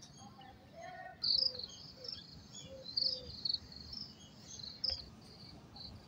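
Small birds and insects chirping in a garden: short, high chirps repeat from about a second in, with a few lower bird notes among them.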